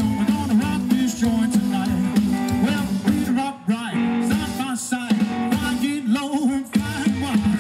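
Live rock and roll band playing: upright double bass, electric guitar and drum kit, with a brief dip in loudness about three and a half seconds in.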